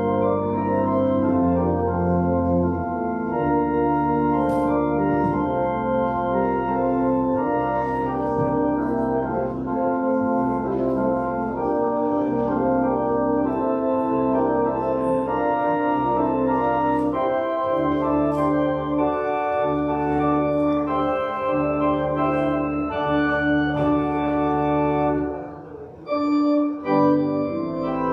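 Church organ playing slow, held chords over a sustained bass line, with a short break between phrases near the end.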